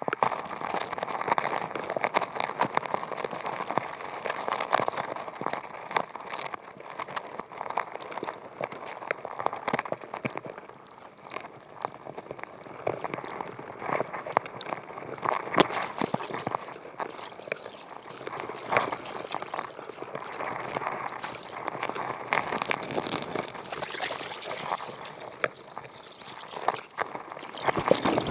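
Underwater clicking and crackling as crabs pick and tear at bait inside a crab trap, with a steady wash of water noise behind; the sharp clicks come thick and irregular.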